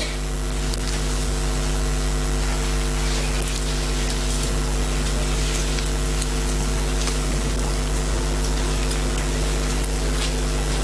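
Steady electrical hum with a set of even tones over a background hiss, unchanging throughout, with a few faint ticks.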